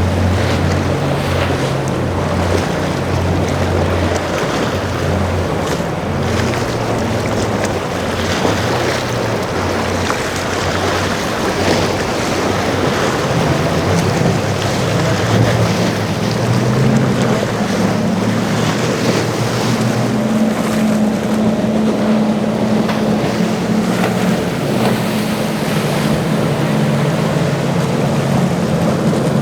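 Motorboat engines running through rough inlet water, their low drone shifting in pitch, over surf and waves, with wind buffeting the microphone.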